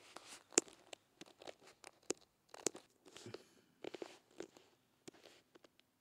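Irregular clicks, taps and soft rustles of fingers handling a phone and tapping its touchscreen, close to the phone's own microphone. A faint steady hum sets in about halfway through.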